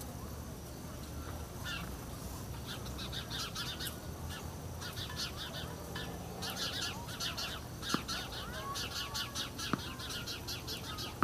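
Birds chirping in rapid runs of short, high chips, with some slurred whistled notes. Late on, two sharp pops under two seconds apart, tennis balls struck by racket.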